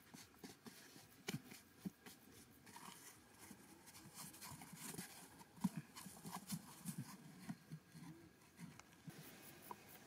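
Faint, irregular scuffs and taps of hands brushing dry soil and of a piece of cardboard being handled and pressed into a small pit in the dirt.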